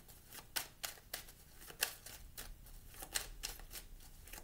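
A deck of tarot cards being shuffled by hand: a string of soft, sharp card clicks and slaps at irregular spacing, a few each second.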